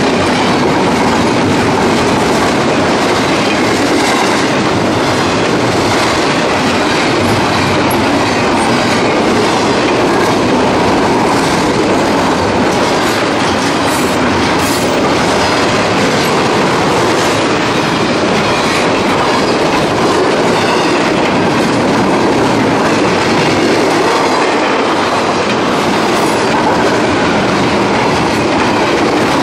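Freight train cars rolling past at close range, a steady rumble with the wheels clicking rhythmically over the rail joints.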